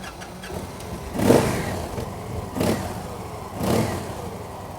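Victory Vision Tour Premium's V-twin engine through a Stage 1 Level 1 aftermarket exhaust, idling and blipped on the throttle three times, each rev swelling and dropping back to idle.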